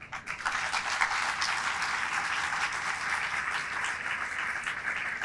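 An audience applauding, many hands clapping together, breaking out suddenly and keeping up steadily.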